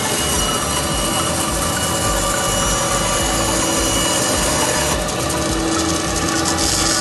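CNC curve-cutting wood saw running, its narrow blade sawing steadily along a curve through a thick wooden board. The cutting noise turns brighter and hissier about five seconds in.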